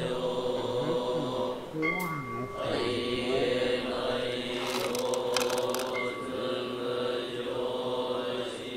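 Experimental drone soundscape of layered sustained tones from electronics, trombone and struck or rubbed tools. Pitches slide down and up about one to three seconds in, a thin high tone enters twice, and a short cluster of sharp clicks comes about five seconds in.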